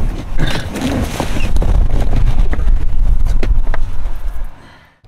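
A person climbing out of a car's rear seat through the open back door: a click as it begins, then a loud low rumble with knocks and rustles from the body moving on the seat and door frame. It falls away shortly before the end.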